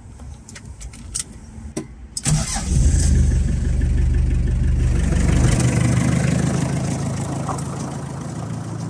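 An old van's engine is started with the ignition key. There are a few light clicks, then the engine catches about two seconds in and settles into a steady idle.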